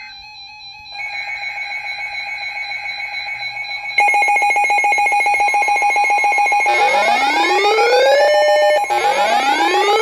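Electronic alert tones: a rapidly pulsing steady tone starts about a second in and gets louder about four seconds in. Near the end a rising siren-like whoop joins it twice, each whoop climbing, holding briefly, then cutting off.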